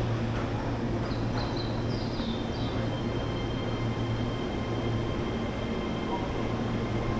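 Steady low machinery hum with an even background noise, as from a running escalator and a train standing at the platform. A few short, high chirps come about one and a half to two and a half seconds in.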